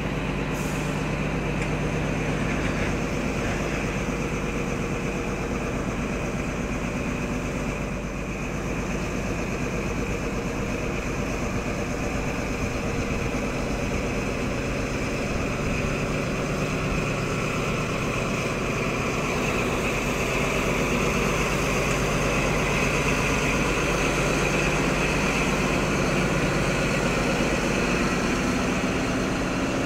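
XPT diesel power car's engine running steadily as it draws the train slowly out of the station: a constant low drone with a higher whine above it that grows a little louder in the second half.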